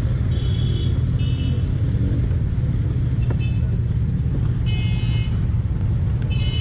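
Steady low rumble of road traffic and engines, with short high-pitched tones sounding over it several times.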